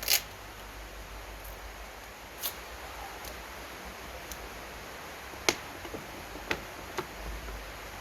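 A few separate sharp clicks and taps over a steady hiss, the sound of hands handling thin plastic and tools at a workbench.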